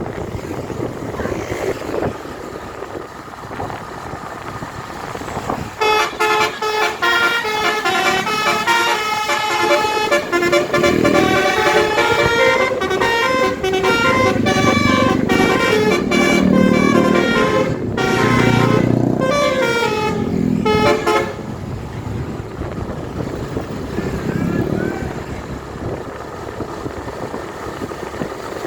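Tour bus's multi-trumpet 'basuri' musical air horn (telolet) playing a tune of changing notes for about fifteen seconds, ending in falling glides. It sounds over steady engine and road noise.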